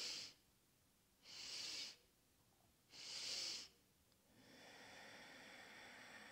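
A woman's breathing exercise: three short, sharp sipping inhalations about a second and a half apart, then from about four seconds in a long, soft, steady exhalation.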